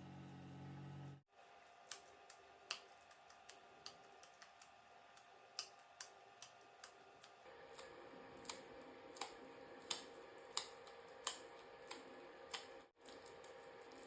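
A series of sharp cutting clicks in a kitchen, uneven at first, then coming steadily about one and a half times a second. The sound drops out briefly just over a second in and again near the end.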